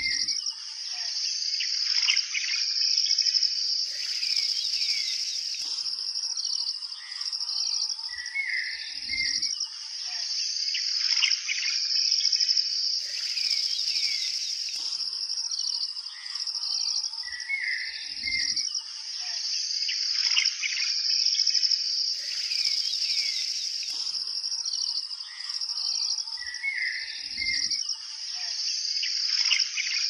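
Nature-sound track of birds chirping over a steady high-pitched insect drone, the same stretch looping about every nine seconds.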